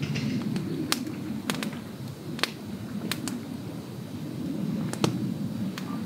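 Wood campfire crackling, with sharp pops at uneven intervals over a steady low noise.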